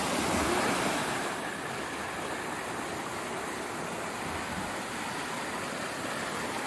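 Muddy, rain-swollen water rushing and churning through an irrigation channel, tumbling over a concrete edge; a steady rush, a little louder in the first second.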